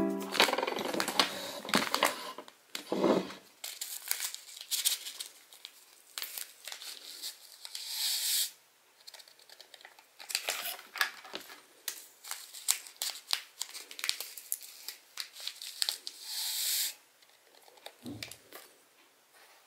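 Paper instant-coffee stick packets being torn open, crinkled and shaken, with irregular rustles and clicks and two longer hissing tears or pours, as the coffee is emptied into a ceramic mug. A soft thud near the end.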